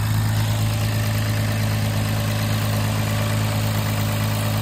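Infiniti Q50's 3.0-litre twin-turbo V6 idling steadily seconds after start-up, running with a newly fitted anti-jump belt kit on its accessory drive.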